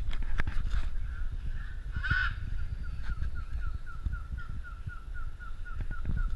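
Scarlet macaw giving a single short, harsh squawk about two seconds in. Behind it, a steady run of short, evenly spaced piping notes, about three or four a second, starts soon after and keeps going, over a low rumble.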